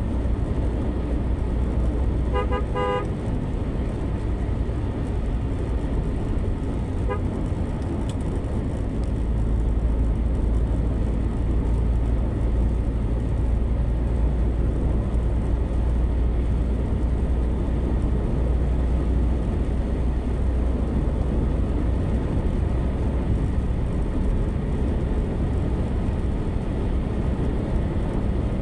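Steady low road and engine rumble inside a moving car's cabin on a smooth highway. A vehicle horn gives a short burst of quick toots about two and a half seconds in, and a fainter toot comes around seven seconds.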